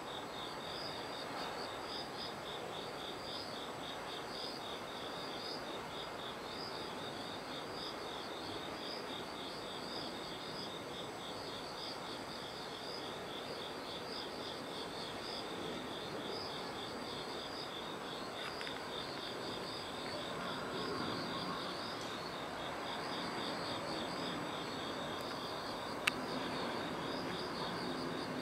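Insects chirping in two overlapping, evenly repeated high rhythms, one rapid and one slower, over a steady background hum. A single sharp click near the end.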